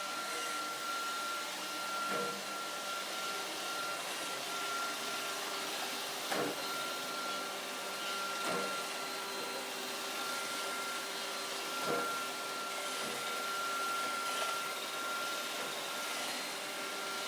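Roomba robot vacuum running with a steady motor whine and brush hum, and a few soft knocks along the way.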